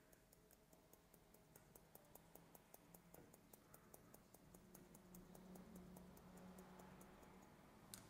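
Faint, rapid clicking of hair-cutting shears opening and closing as they work down a section of long hair, about five snips a second, with one sharper click near the end.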